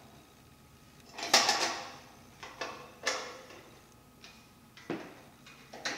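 A steel clean-out cover plate and its screws being handled with a screwdriver against the cook stove's steel body: a longer scraping clatter about a second in, then several short metallic knocks and clicks.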